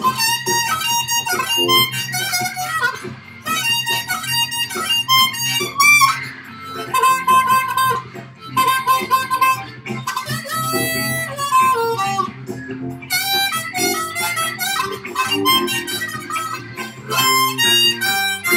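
Blues harmonica solo played into a handheld microphone cupped in the hands, in phrases of quick notes with short breaks every few seconds. It plays over a backing track with bass and guitar.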